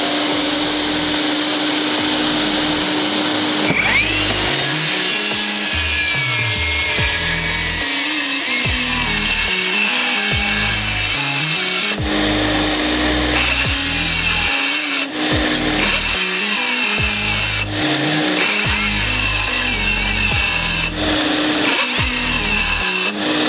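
DeWALT DCS570 18V cordless circular saw, run on a standard 5Ah battery, cutting through three stacked sheets of 18 mm OSB. The motor's whine drops in pitch as the blade bites in and it labours through the cut, with several brief dips where it struggles; the standard cylindrical-cell battery cannot deliver enough power for the cut in one go.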